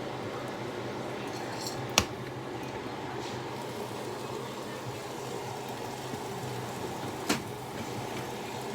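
Steady kitchen background hum and hiss, broken by two sharp clicks: a loud one about two seconds in and another near the end.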